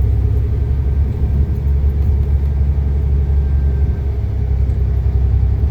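Dump truck's diesel engine running, a steady low rumble.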